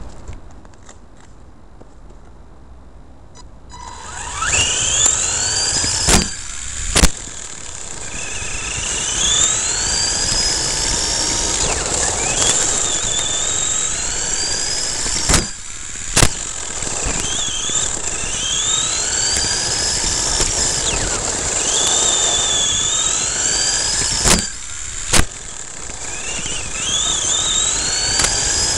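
The electric motor and drivetrain of a radio-controlled short course truck, heard from its onboard camera. The truck pulls away about four seconds in and then whines up in pitch again and again as it accelerates, over a steady crunch of tyres on gravel. Three pairs of sharp knocks, each about a second apart, come around six, fifteen and twenty-four seconds in.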